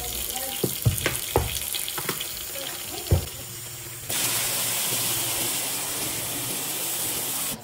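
Kitchen tap running into a stainless steel sink as it fills with soapy water, with a few short knocks in the first half. About four seconds in, the sound steps up to a louder, even hiss of water pouring into thick suds, which cuts off abruptly.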